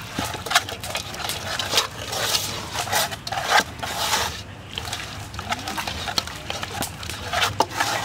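Hands kneading and rubbing marinade into whole raw chickens in a metal pot: irregular wet squelching and slapping of the meat, with occasional sharp knocks against the pot.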